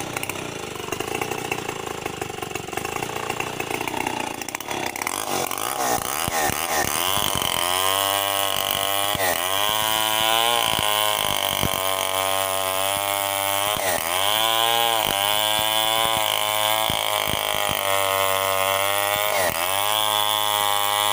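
Two-stroke chainsaw cutting into a melinjo tree trunk. It runs quieter at first, then from about six seconds in runs at high revs, its engine pitch sagging and recovering several times as it works through the wood.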